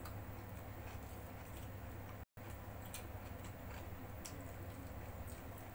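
Faint eating sounds: scattered small clicks and smacks of chewing and of fingers picking at rice and chicken on the paper wrapping, over a steady low hum. The sound drops out completely for a moment a little over two seconds in.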